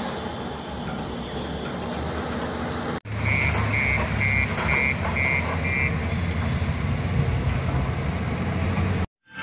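Diesel engines of heavy earth-moving machinery working a burning coal heap. After a brief cut about three seconds in the engine rumble is louder and deeper, and a machine's warning alarm beeps six times at about two beeps a second.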